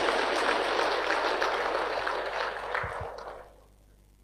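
Large audience applauding, dying away about three and a half seconds in.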